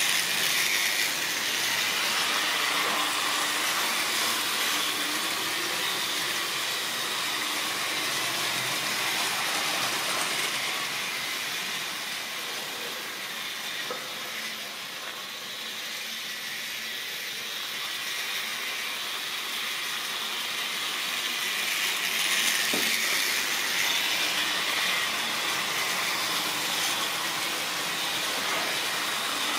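A model railway train running on the layout's metal track, with the small electric motor and wheels making a continuous whirring rattle. It fades for a while mid-way and grows louder again as the train comes back near.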